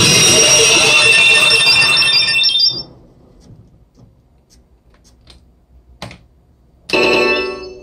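Shura no Toki pachislot machine's electronic sound effects: bright chiming, bell-like tones that fade out about three seconds in, a few faint clicks, then another loud chime near the end.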